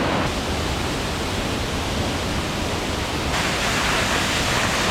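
Steady, loud rush of flowing water with no break in it, typical of a waterfall or fast mountain stream heard close up.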